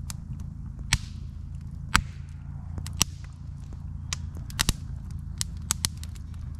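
Wood campfire crackling, with sharp, irregular pops and snaps from the burning split logs, several of them loud, over a steady low hum.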